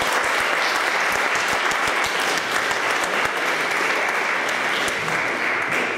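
Audience applauding, a dense clatter of many hands clapping that dies away near the end.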